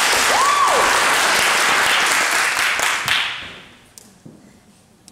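Audience applauding, with a cheer that slides up and then down in pitch about half a second in. The applause dies away after about three seconds, leaving only a few scattered claps.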